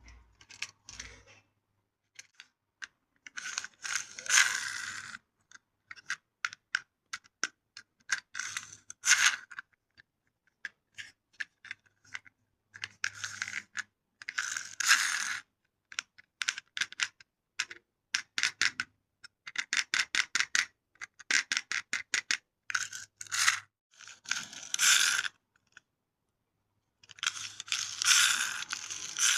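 Small plastic remote-control toy cars clattering: runs of quick sharp clicks and short scraping rattles that come in bursts every few seconds.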